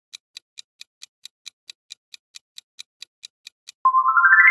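Countdown-timer sound effect: a clock ticking evenly, about four to five ticks a second. Near the end it gives way to a quick rising chime that holds and rings on, signalling that the time is up.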